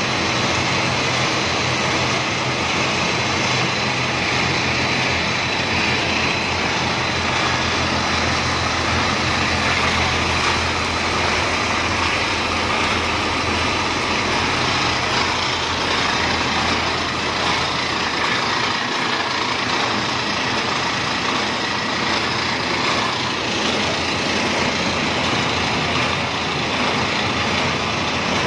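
Cereal co-extrusion production line running: a steady machinery drone from the extruder, motors and conveyors, with a constant low hum underneath.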